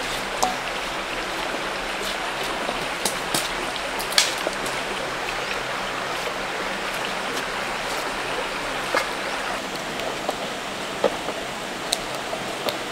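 Steady rush of a flowing creek, with a scattered series of small sharp knocks and clicks; the loudest knock comes about four seconds in.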